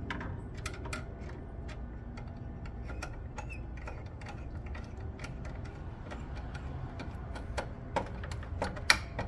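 Irregular small clicks and ticks of a screwdriver turning a terminal screw on a disconnect switch's line-side lug, tightening a wire down. A few louder clicks come near the end.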